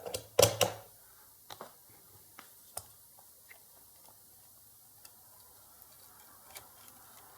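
Faint, irregular clicks and light taps of small objects being handled on a workbench, with one louder clatter just after the start.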